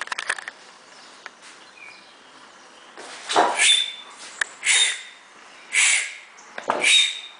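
Owl giving harsh hissing screeches, four of them about a second apart from about three seconds in, after a few brief clicks at the start.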